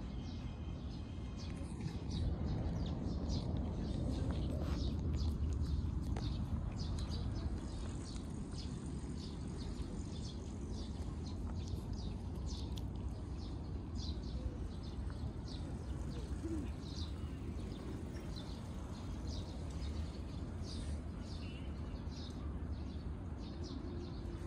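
Small birds chirping again and again in short separate calls, over a steady low rumble on the microphone.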